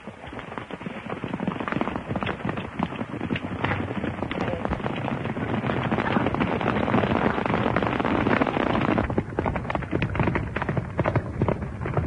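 Hoofbeats of a group of horses galloping, a dense, rapid clatter that builds up, is loudest just before the middle of the stretch, and thins out about nine seconds in.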